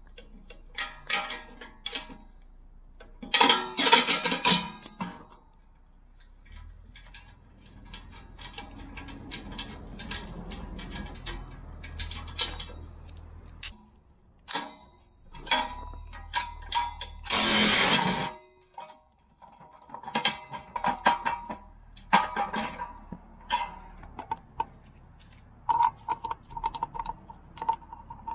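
Hand tools working on steel parts: scattered metal clinks and clanks with ratcheting, while fittings are undone to remove a catch tray and a hydraulic line. There is one loud rush of hiss lasting about a second, roughly two-thirds of the way through.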